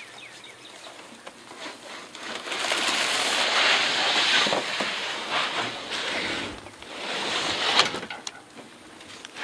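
White corrugated-plastic bee nuc boxes scraping as they are slid across a ridged plastic pickup bed liner, in two long drags, with a sharp knock near the end.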